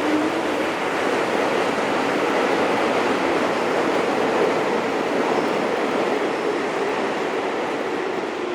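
Steady rushing noise with a faint droning hum underneath, swelling slightly in the middle and easing off near the end.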